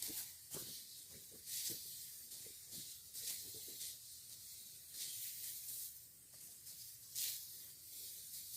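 Rice stalks being cut by hand in the field: a series of faint, crisp swishing rasps every second or two as handfuls of stalks are sliced and gathered.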